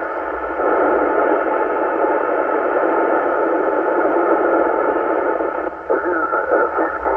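Weak, distant 11-metre CB FM signal from a duplex repeater heard through a transceiver speaker: a steady hiss of band-limited receiver noise, with a faint, garbled voice starting to come through the noise near the end.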